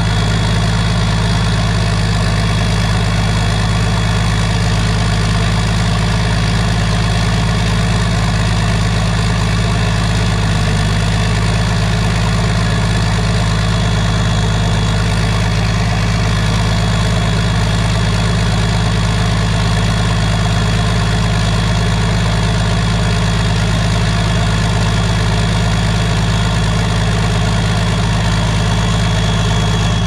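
Straight-piped, aftermarket-turbocharged diesel engine of an International Harvester 1420 combine idling steadily, heard right at its open exhaust stack, with a thin steady whine above the deep exhaust note.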